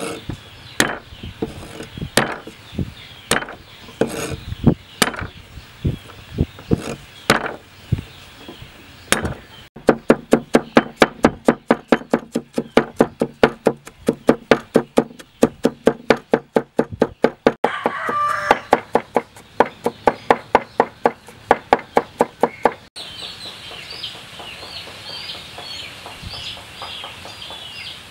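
Knife chopping garlic cloves on a wooden cutting board: slow single cuts at first, then rapid even mincing with a cleaver at about four strokes a second. After that the chopping gives way to chickens clucking and many short, high bird chirps.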